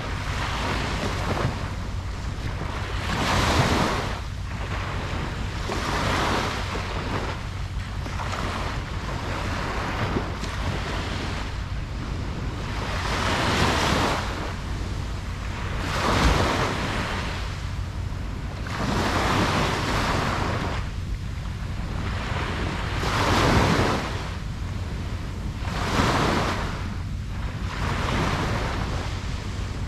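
Ocean waves breaking on a beach, a swell of surf every two to three seconds over a steady low rumble of wind on the microphone.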